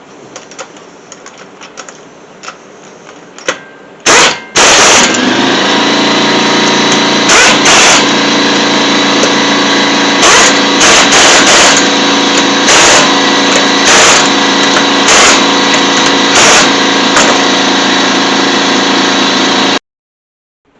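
Faint clicks of lug nuts being threaded on by hand, then a loud power tool running steadily with short, louder rattling bursts every second or so as the wheel's lug nuts are run down. It cuts off abruptly near the end.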